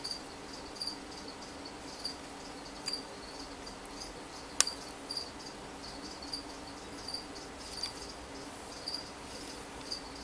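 Insect chirping, short high chirps repeating irregularly over a faint steady hum, with one sharp click about four and a half seconds in.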